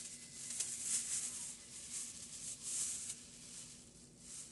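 A thin hair-mask cap being handled and unfolded, rustling and crinkling in soft irregular bursts, with a faint steady hum underneath.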